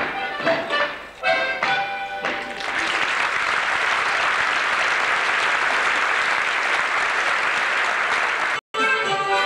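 A folk band plays the closing chords of a dance tune, then the audience applauds steadily from about two and a half seconds in. The applause cuts off suddenly near the end, and band music starts again.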